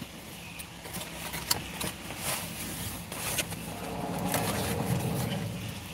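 Scattered light clicks and scrapes of handling close to the microphone, over a low steady vehicle rumble that swells a little about four seconds in.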